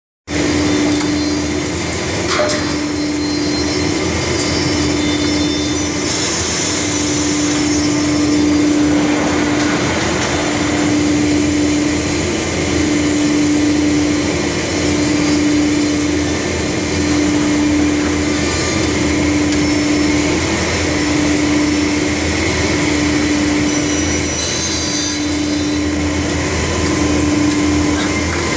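Schelling FW430 panel saw running, a steady machine noise with a low hum that pulses on and off about every two seconds while a panel is drawn into the saw. A single sharp click sounds about two seconds in.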